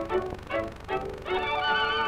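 Music led by a violin, playing a string of short notes, then a long held note beginning a little past halfway.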